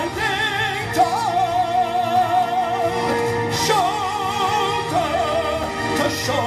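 A man singing long held notes with a wide vibrato over a karaoke backing track.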